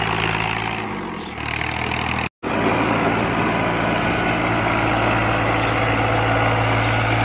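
Diesel farm tractor engine running steadily under load while its PTO-driven rotavator churns the soil. The engine note sags briefly about a second in, and the sound breaks off for an instant just after two seconds.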